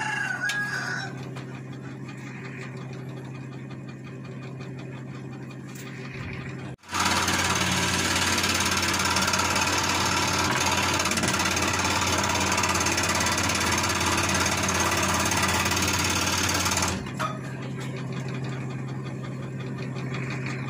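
Electric scroll saw running, its reciprocating blade cutting through a small block of wood with a steady hum. The sound cuts off abruptly about seven seconds in and comes straight back louder, then drops back to a lower level about three seconds before the end.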